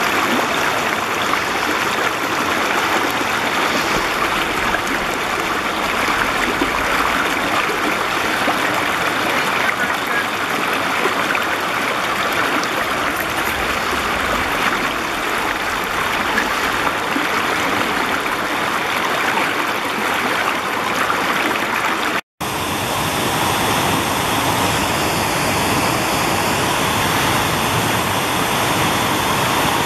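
Woodland brook rushing steadily over rocks, ledges and small cascades. It drops out for an instant about two-thirds of the way through, then carries on slightly softer in the highs.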